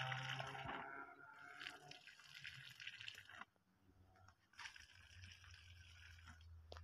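Liquid fertiliser splashing faintly from a backpack drench applicator's wand onto the soil at the base of chilli plants, in two spells with a short break about three and a half seconds in.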